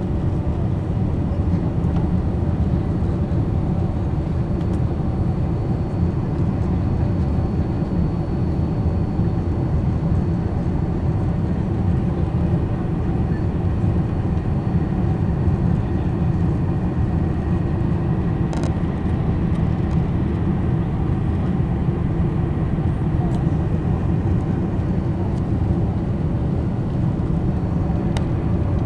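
Boeing 747-400 jet engines and rushing air heard inside the passenger cabin during the climb after takeoff: a steady deep noise with a faint high whine over it, and a couple of faint clicks.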